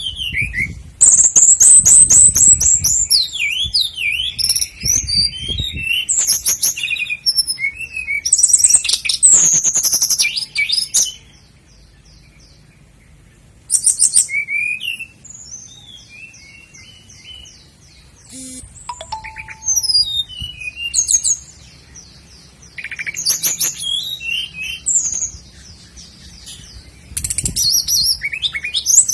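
Common nightingale singing in loud bursts of varied phrases: fast trills, whistled sweeps and rapid series of repeated notes, each phrase a few seconds long with short pauses between.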